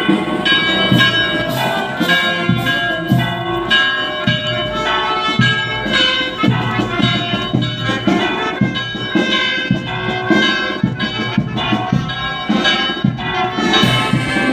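Church bells ringing in a continuous peal, several strikes a second with overlapping tones that linger.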